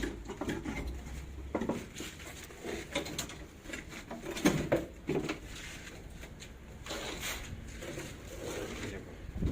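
Scattered knocks and clatter of hand work on steel reinforcing bar and wooden formwork, with two sharper knocks about halfway through.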